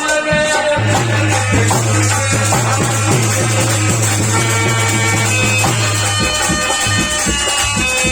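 Instrumental stretch of Indian folk devotional music: a dholak and other percussion play a steady run of strokes over a low held note that stops about six seconds in.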